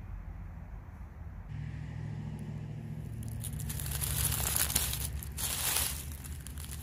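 Rustling, crinkling noise with crackles, building to its loudest between about four and six seconds in, over a steady low rumble.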